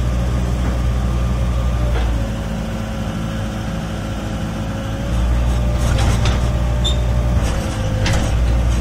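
Gehl 4510 skid steer's engine running, dropping in level about two seconds in and coming back up about five seconds in, with a steady whine over it and a few metallic clanks near the end.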